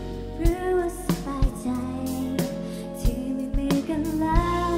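Live pop ballad: a woman singing over a band, with bass guitar holding long low notes and drums marking the beat.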